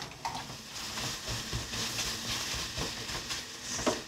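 Beaten eggs sizzling in a hot wok as they are stirred into a scramble, with the occasional scrape of the spatula against the pan.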